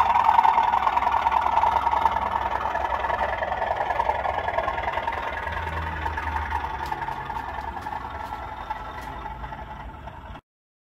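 Bachmann OO gauge Class 37 model diesel locomotive running away along the layout, its diesel engine sound steady and fading. A few faint clicks near the end, then it cuts off abruptly.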